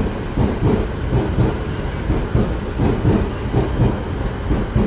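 Train wheels running over rails and points, heard from inside the front car: a steady rumble with irregular clatter of the wheels over joints and switches.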